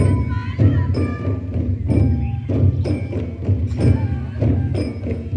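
Bwisagu dance music with a steady percussion beat of about two strikes a second, bright high strikes in time with it, and a melody line above.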